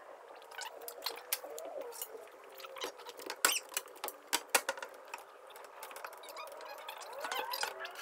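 Scattered light knocks and clicks of wood and tools being handled on a plywood box, loudest a few seconds in, with a few faint squeaks.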